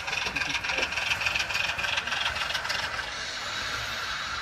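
Model diesel switcher locomotive running through the yard, with a steady diesel engine running sound and a light rattle of its wheels on the track.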